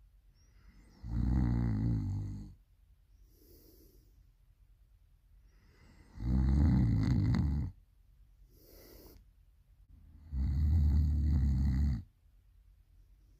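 A person snoring loudly: three long snores about four and a half seconds apart, each lasting about a second and a half, with a softer breath between them.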